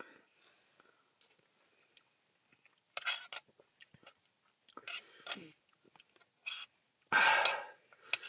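A man eating hot food from a pot with a spoon: bits of chewing and short breaths, with a few light spoon clicks. There is a louder breath near the end.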